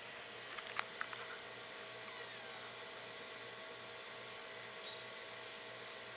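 A few sharp clicks and knocks about a second in from an action camera being handled and lowered to the road, over a steady outdoor hush. Near the end come four short, high chirps in quick succession.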